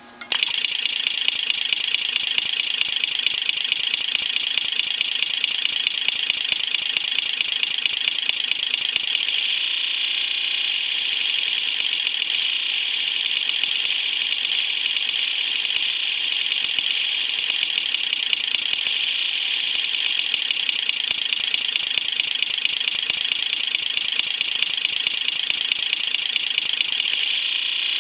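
Six large 12 V electromechanical relays clicking in rapid succession in the firing order of an Opel Omega A inline-six, so the clatter imitates a running six-cylinder engine. It starts abruptly and its pattern shifts about ten seconds in.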